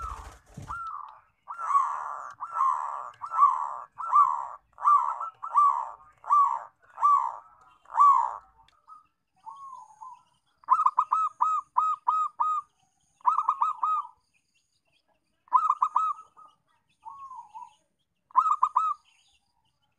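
Zebra dove (perkutut) cooing: a run of about ten even, rising-and-falling coos, then several quick bursts of short staccato coos. A brief thump comes at the very start.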